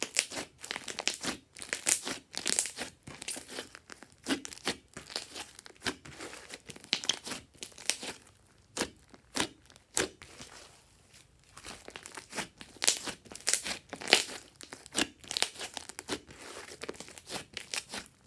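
Hands squishing, stretching and poking a thick lump of slime: irregular sticky crackles and pops, coming in clusters with short lulls.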